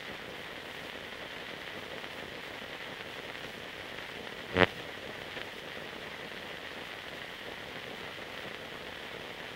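Steady hiss of a silent archival film soundtrack, with one loud click or pop about halfway through.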